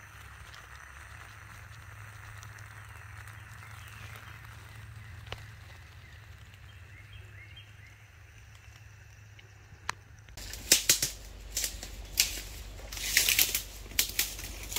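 A small alcohol stove burning with a steady soft hiss under a mess tin, with faint bird chirps. About ten seconds in it cuts to footsteps crunching through dry leaf litter and twigs, with a low wind rumble on the microphone.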